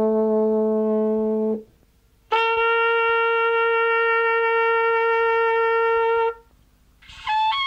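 Brass horns played one sustained note at a time, as replacements for notes lost from an old record. A long low horn note ends about a second and a half in. After a short gap, a trumpet holds a steady higher note for about four seconds. Near the end a higher run of changing trumpet notes begins.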